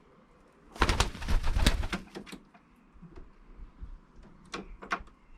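Young racing pigeons flapping their wings, a loud burst of rapid wingbeats lasting about a second, followed near the end by a few short clicks.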